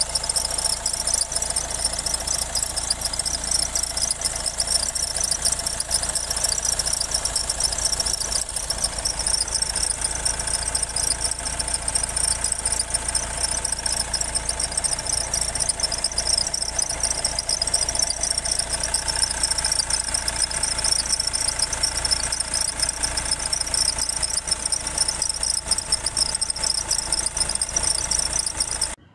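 Nissan Qashqai 1.5 dCi four-cylinder diesel engine running with diesel clatter, under a loud, steady, high-pitched squeal from the damaged alternator belt tensioner pulley. The failing pulley drags on the accessory belt, braking it. The sound cuts off suddenly just before the end.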